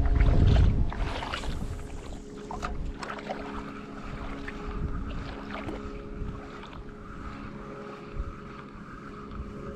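Wind rumbling on the microphone for about the first second, then the steady, faint hum of a distant motor with a few light clicks.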